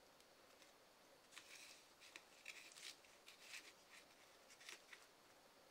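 Plastic spatulas scraping across the chilled metal plate of an ice-roll maker and through crumbs of frozen sherbet: a string of short, soft scratchy scrapes starting about a second in and stopping shortly before the end.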